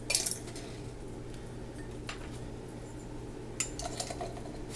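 Metal screw bands being turned onto glass mason jars and the jars handled: a short scraping clink just after the start, then a few light clicks near the end.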